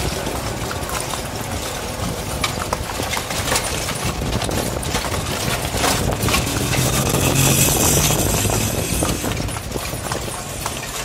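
Hooves of a carriage horse clip-clopping on a paved street as it pulls the carriage at a steady pace. A motor vehicle's engine swells and fades past the middle.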